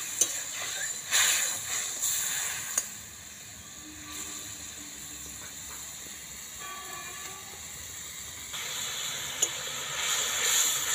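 Spiced onion-tomato masala simmering and sizzling in a kadai after a cup of water was added, being cooked down until the oil separates. A metal spatula clicks and scrapes against the pan a few times; the hiss drops quieter about three seconds in and grows louder again near the end.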